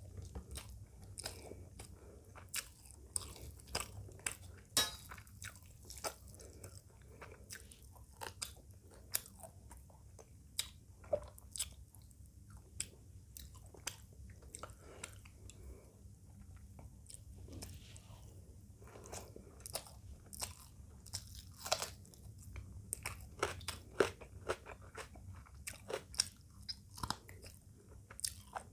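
Close-miked eating sounds: chewing and crunching through a meal of rice, chicken curry and raw onion and tomato salad, with frequent irregular sharp crunches and mouth clicks.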